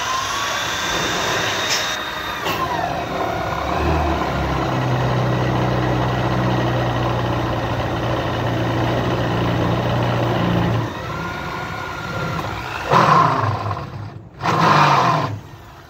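Corded electric drill driving a 5/8-inch spade bit into the wall of a 4-inch PVC pipe. The motor runs under load for several seconds, then speeds up in two short, loud bursts near the end.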